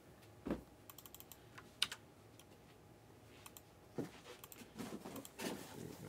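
Faint, irregular light clicks and taps, some single and some in quick little clusters, with no steady rhythm.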